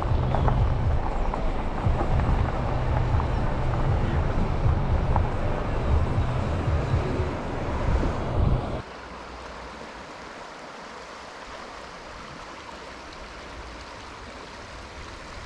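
Wind buffeting the microphone, a loud uneven rushing rumble; about nine seconds in it cuts off suddenly to a much quieter steady hiss.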